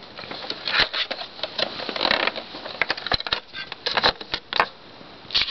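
Irregular plastic clicks and knocks of hands handling a portable boombox at its battery compartment, with batteries rattling.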